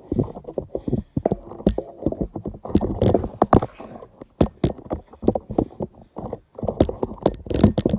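Objects being handled up close: irregular rustling with many sharp clicks and knocks.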